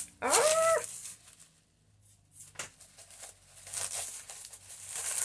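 Bubble-wrap packaging crinkling and rustling in bursts as it is unwrapped from a small ceramic pot. The rustle is loudest in the first second, then comes back fainter several times near the end. About half a second in there is a brief rising hummed voice sound.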